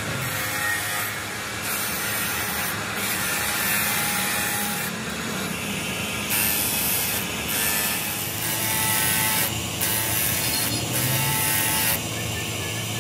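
Hand tools scraping and rubbing on a repaired metal engine plate as it is marked out with a scriber and steel square, over a steady hiss of workshop noise.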